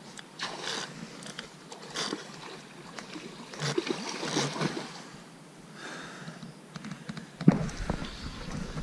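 Water splashing in repeated bursts as a hooked sea trout thrashes at the surface, while a spinning reel is cranked. A sharp knock near the end is the loudest sound.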